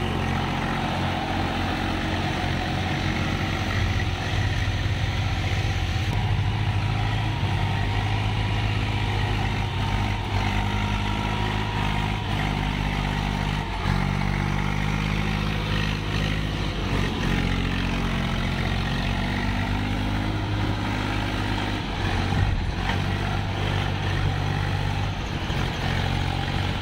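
Swaraj 735 tractor's three-cylinder diesel engine running under load, pulling a loaded trailer through mud. Its pitch steps up and down several times as the revs change.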